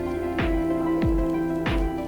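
Background music with a steady beat: a deep kick drum about every 0.6 s under held chords.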